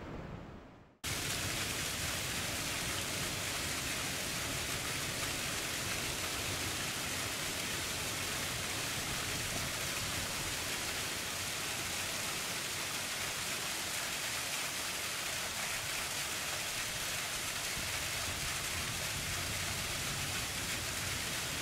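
Small waterfall splashing down a rock face into a shallow pool: a steady rush of falling water that starts abruptly about a second in.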